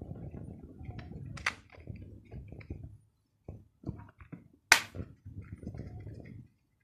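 Handling noise: low, uneven rubbing and scraping with scattered light ticks, broken by two sharp clicks, the louder one about two-thirds of the way in.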